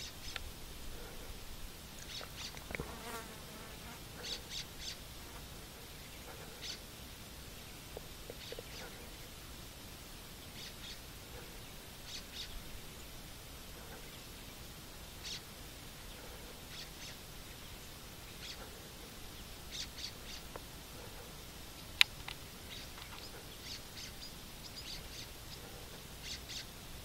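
Faint natural ambience: short, high chirps repeat irregularly every second or two over a soft hiss. A single sharp click comes about three-quarters of the way through.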